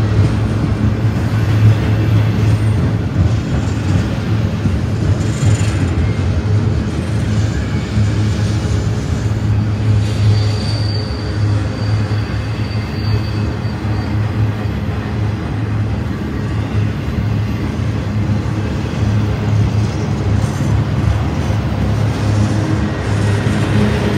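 Intermodal freight train of double-stack container and trailer cars rolling past at trackside: a steady low rumble of wheels on rail, with a thin high squeal for a few seconds near the middle.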